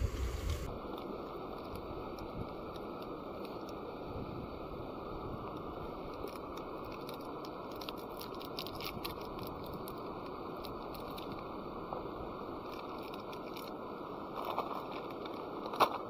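Light crinkling and small clicks of a packet being handled and opened over a pan of water, over a steady hiss, with a sharper click near the end as a small cube is dropped into the pan.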